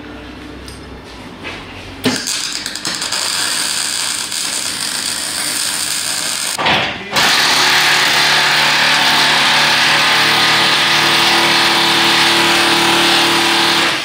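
MIG welder crackling and hissing as steel plate is welded onto a car door, in two runs: a more broken, spitting run starting about two seconds in, a brief break about seven seconds in, then a longer, steadier and louder run.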